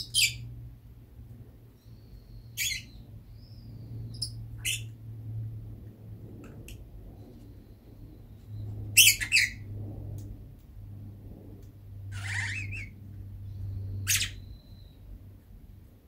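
Pet lovebird chirping: about six short, sharp calls a couple of seconds apart, the loudest about nine seconds in and a longer one near twelve seconds, with soft, high whistling notes in between.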